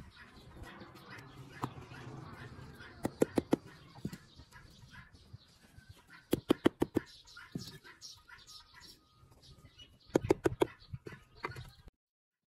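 Three quick runs of four or five sharp taps, spaced a few seconds apart, over faint background noise; the sound cuts off abruptly just before the end.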